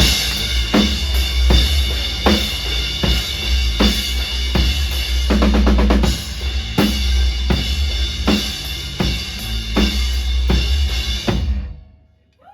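Live band playing with no vocals: a drum kit beats out a steady kick-and-snare pattern over a heavy bass and held chords, with a quick drum fill about five seconds in. The music stops suddenly near the end.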